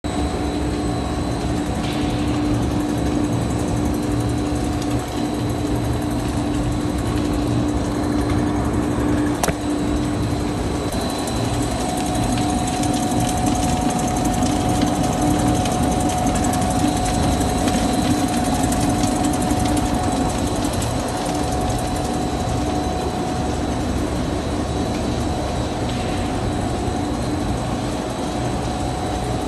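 Machinery of a puffed-snack extrusion production line running: a steady mechanical hum with several constant tones. A higher tone joins about a third of the way in.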